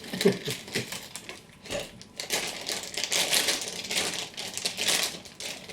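Plastic snack packet of Twisties crinkling and rustling in dense, irregular crackles as it is pulled open and handled.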